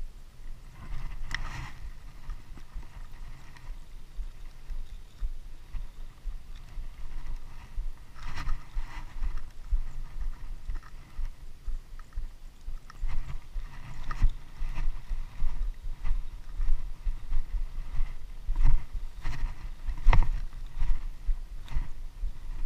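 Low, uneven rumble of wind and handling noise on a body-worn camera's microphone. It is broken by a few brief rustles and knocks, about 1, 8, 14 and 20 seconds in, from gloved hands working close to the camera.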